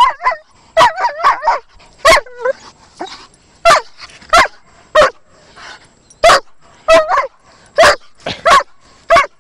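German Shepherd barking excitedly in short, loud barks, roughly one or two a second, some coming in quick doubles and triples, the barking of a dog worked up over a stick.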